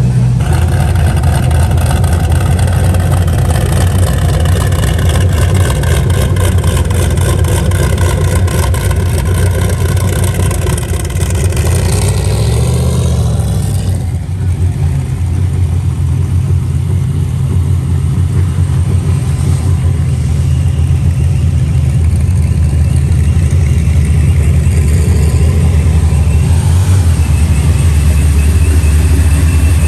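Car engine running loud at a steady cruise. Its note rises and then drops off about halfway through before settling back into a steady drone.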